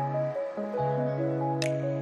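Background music: held chords under a simple repeating melody, with a short bright tick about every second and a half.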